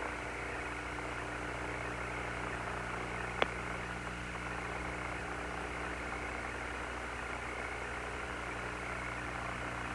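Steady hiss and hum of the Apollo 17 air-to-ground radio link with no one transmitting, with one short sharp click about three and a half seconds in.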